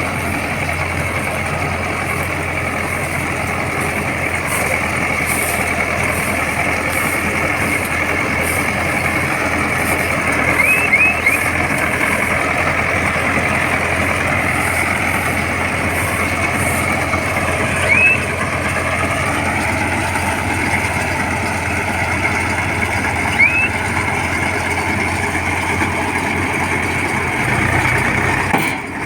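Diesel engine of a Mahindra Yuvo Tech+ 475 DI tractor running steadily while driving a BULLAGRO round baler, with a high steady whine over the engine hum. A few brief rising squeaks cut through about a third of the way in, around the middle and again later.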